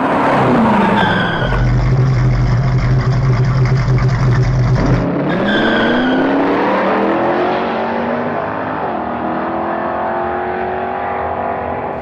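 Car engine and tyre squeal sound effect. The engine note drops sharply within the first second or so, holds a low drone with rumble, then breaks off about five seconds in and climbs steadily again.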